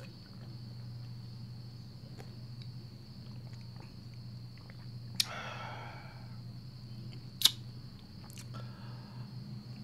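Close-up chewing of a mouthful of rice eaten by hand, with soft mouth noises. A sharp click about five seconds in and a louder one about two seconds later, over a steady low hum.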